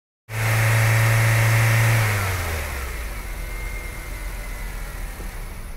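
A car engine sound starts abruptly with a steady, loud note. About two seconds in, its pitch drops slightly and it fades away over the next few seconds, like a car driving off.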